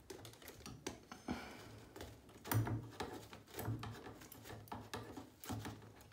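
Faint handling noises: scattered light clicks, taps and rubbing as long tweezers work among the substrate and against the sides of a small plastic enclosure.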